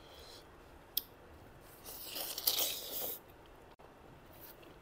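Close-miked eating sounds: a small click about a second in, then a crackly crunching, tearing burst lasting about a second, as fried food is bitten and pulled apart.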